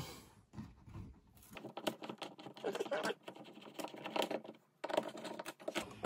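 Phillips screwdriver backing a stiff mounting screw out of a wall light switch's yoke in a metal box: a run of small, irregular clicks and scrapes of metal and plastic.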